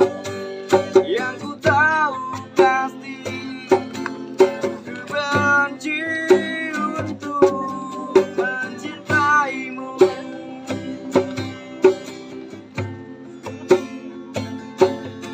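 Acoustic music: a plucked string instrument keeps a steady strummed rhythm under a wavering melody line with vibrato, as from a busker's instrumental passage between sung lines.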